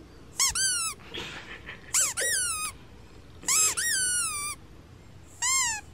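Recorded cat meows: short high-pitched calls, each rising then falling in pitch, coming in quick pairs about every second and a half, with a single one near the end.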